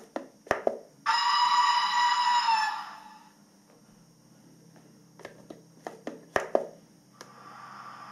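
Steam-type whistle from a model locomotive's sound unit, one blast of about a second and a half that drops slightly in pitch as it stops. Clicks and light knocks come before and after it, and a steady hum starts near the end.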